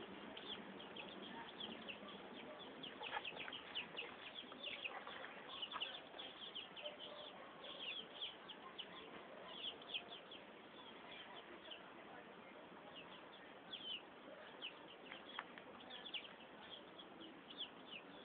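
Young chickens about three weeks old peeping: many short, high, falling peeps in quick runs with brief lulls.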